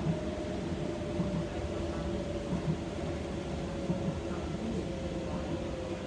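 Docklands Light Railway electric train running along the track, heard from inside the car: a steady rumble with a whine that slowly drops in pitch.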